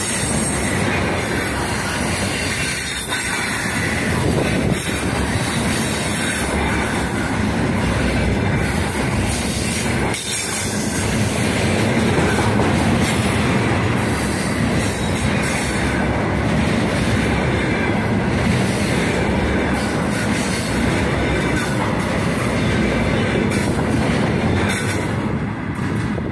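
Loaded freight container wagons rolling past at close range, the steady noise of steel wheels on the rails. The noise begins to drop as the last wagon goes by at the very end.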